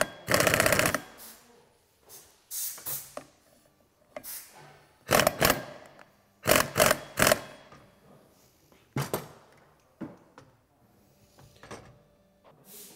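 Metal parts of a Honda Camino PA50's variator clinking and knocking as they are handled and fitted by hand, in scattered separate clicks. A short burst of fast, even rattling sounds in the first second.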